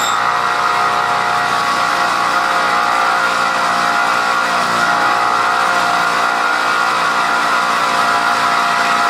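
Bench grinder running with a steel bolt held against its abrasive wheel to cut it shorter: a steady motor whine under a continuous grinding noise of metal on the wheel.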